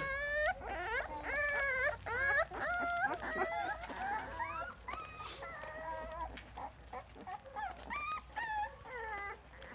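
Rottweiler puppies about two and a half weeks old whimpering and squeaking, many short high cries that overlap at first and grow fewer toward the end.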